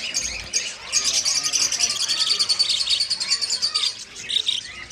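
A flock of budgerigars chattering and chirping, with a dense run of rapid chirps from about one second to four seconds in.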